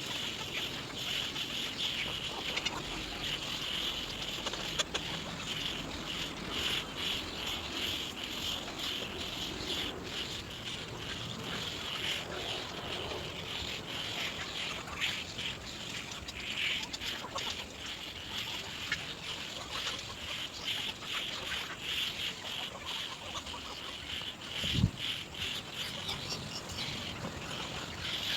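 Birds at an egret nest calling in a continuous, pulsing high chatter. A single low thump sounds near the end.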